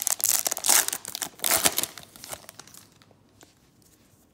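Plastic wrapper of a baseball trading-card pack crinkling and tearing as it is ripped open. Loud for about the first two seconds, then dying away.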